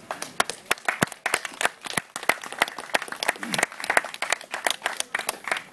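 A small group of people applauding, with sharp, distinct hand claps close by standing out over the rest.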